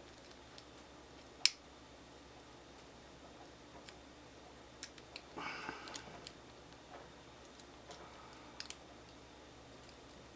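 Lock pick and tension wrench working in a Fortress 40mm padlock: faint metal clicks and scraping, with one sharp click about a second and a half in and a short patch of scraping around the middle.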